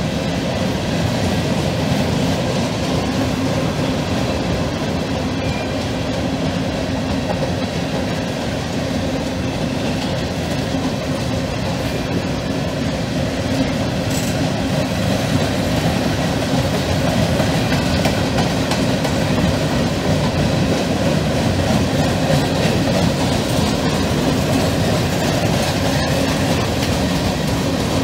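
Empty freight flatcars rolling steadily past: the continuous noise of steel wheels running on the rails.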